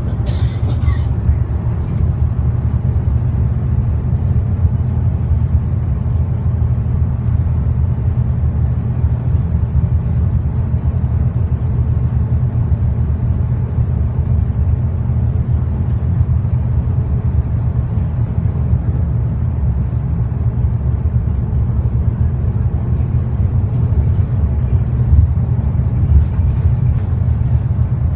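Inside the cabin of a Bustech ADi bus at steady cruising speed: the Cummins ISL inline-six diesel drones evenly, mixed with road and tyre rumble, with no gear change.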